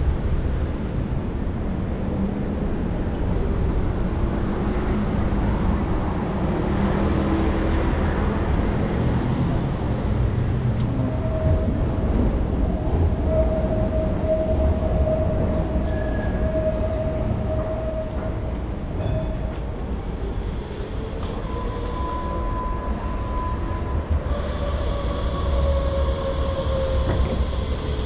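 Berlin street tram running close by: a steady low rumble with electric whine tones, one held for several seconds midway, others shifting in pitch near the end.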